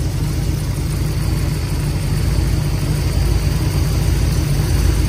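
Oldsmobile 403 V8 running steadily on its first test runs after assembly, a low rumble that gets a little louder in the second half.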